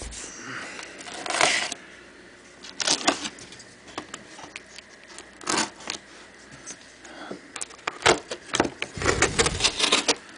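Taped cardboard box being opened by hand: scattered scrapes, rustles and taps of cardboard and packing tape, coming thicker near the end.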